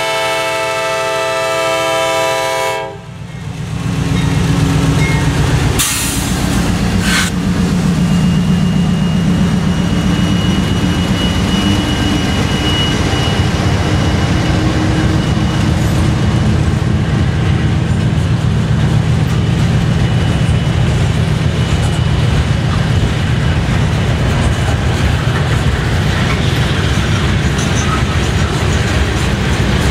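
CSX freight train with GE AC6000CW and AC4400CW diesel locomotives: the locomotive air horn blows a chord that cuts off about three seconds in, then the diesel locomotives pass close by with a low rumble and two sharp knocks. Loaded rock hopper cars follow, rolling past with the clickety-clack of wheels over the rail joints.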